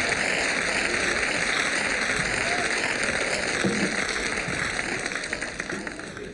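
Studio audience applauding: a dense, steady patter of clapping that dies away near the end.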